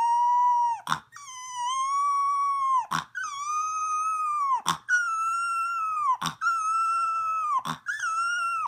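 Boxer puppy howling: a string of about six long, steady howls, each one and a half to two seconds, split by short catches of breath. The pitch creeps slightly higher from howl to howl.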